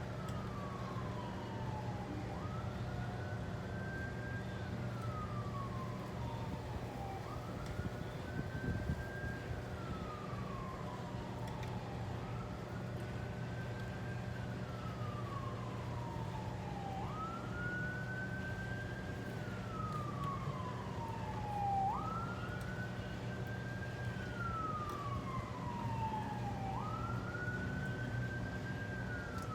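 Emergency-vehicle siren in a slow wail. Each cycle climbs quickly, holds near the top, then slides slowly down, repeating about every five seconds over a steady low hum.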